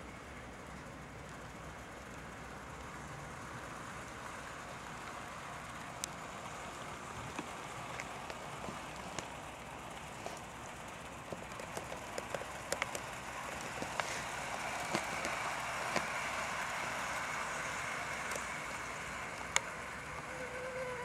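Hornby OO-gauge model of an LNER A3 steam locomotive running along the track with its coaches: a steady electric whir of the small motor and wheels on the rails, with scattered sharp clicks, growing louder as the train nears and then easing slightly near the end.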